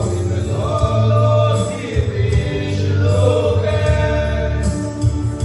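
Small group of men singing a gospel hymn together into microphones, long held notes in harmony, over a recorded backing track with a steady low bass.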